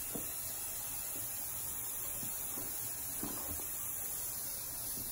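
Aerosol can of Apple Garde rain and stain repellent spraying in one long continuous hiss.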